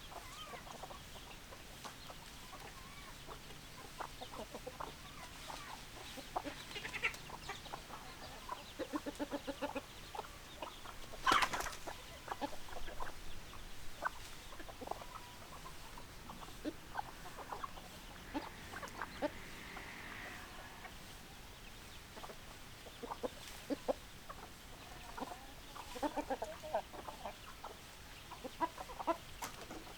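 Domestic hens clucking, many short clucks from several birds with an occasional longer call. A sharp loud click about eleven seconds in.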